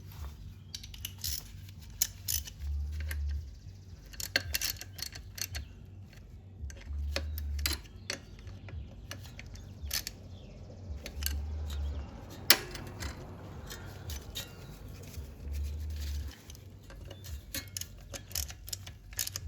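Scattered metallic clicks and clinks of hand tools and bolts being handled during work on an ATV engine, with one sharp click about twelve seconds in. A low hum comes and goes at regular intervals, about every four seconds.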